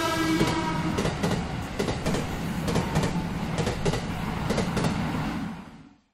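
Train passing, a steady rumble with repeated clacks of the wheels over the rail joints, fading away near the end.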